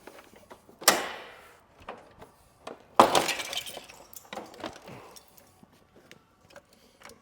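Two sharp crashes of breaking, clattering hard pieces about two seconds apart, each trailing off in a glassy rattle, then a few small clicks. The pieces are from a crash-damaged front bumper and fog light assembly being pulled apart.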